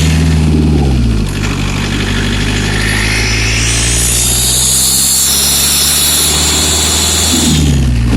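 A VW Golf 4 1.9 TDI four-cylinder turbodiesel heard from inside the cabin while driving. A high-pitched whine rises in pitch through the middle, and the engine note drops near the start and again near the end. This is the squeal the owner hears only under acceleration: it grows with engine speed and stops on deceleration, and its cause is unknown.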